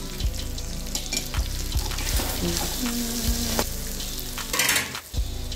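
Fish curry sizzling in a steel kadhai on a gas flame as tamarind water goes in and is stirred with a steel ladle. The ladle clinks against the pan several times, and the sizzle briefly grows louder about four and a half seconds in.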